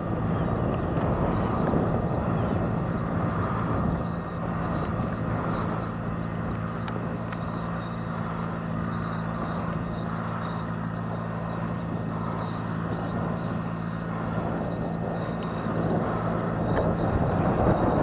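Fendt 415 tractor's diesel engine running steadily under load as it pulls a four-furrow reversible plough through stubble, a constant drone heard from a distance across the field. It grows a little louder near the end.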